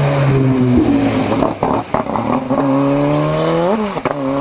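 Renault 5 rally car's engine accelerating hard past on a wet road, with tyre hiss underneath. The engine note drops at a gear change about half a second in, a few sharp cracks come near the middle, then the revs climb and fall sharply at an upshift near the end.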